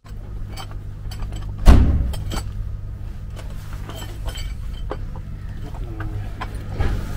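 Steady low machine hum, with metal clinks and knocks from hand work on a passenger railcar's underbody equipment and one heavy thump near two seconds in.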